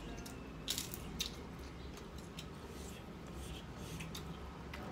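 Close-up eating sounds: a crisp fried cracker being bitten and chewed, with a couple of sharp crunches in the first second or so, then softer scattered wet mouth and finger-in-food sounds.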